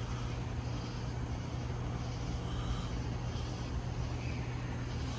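Steady low mechanical hum with an even background hiss and no distinct knocks or clicks.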